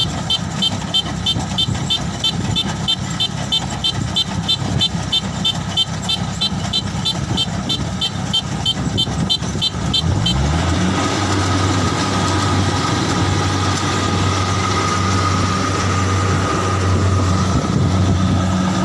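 Crawler rice combine harvester's engine running with a rapid high-pitched warning beeper, about four beeps a second. About ten seconds in the beeping stops and the engine revs up to a steady higher hum.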